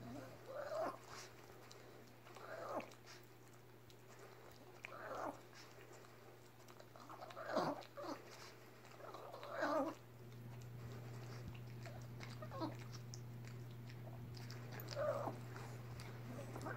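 A Boston Terrier licking and nuzzling a Weimaraner's head, with a handful of short, moaning dog sounds every couple of seconds among wet licking clicks.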